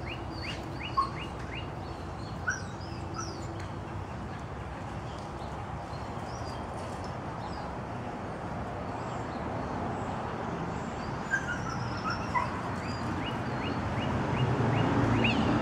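Birds chirping over a steady low hum, broken by four short, sharp yips from a dog running an agility jump course: two near the start and two later on.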